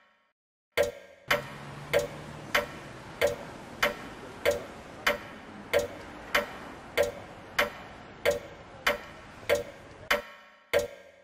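Clock ticking loudly and evenly, about one and a half ticks a second, each tick ringing briefly. From about a second in until near the end, a steady rush of background noise lies under the ticks, then they go on alone.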